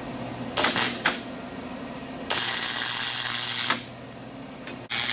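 Wire-feed welder arc crackling as steel brackets are tack-welded to angle iron, in three bursts: a short one under a second in, a longer one of about a second and a half in the middle, and another starting near the end.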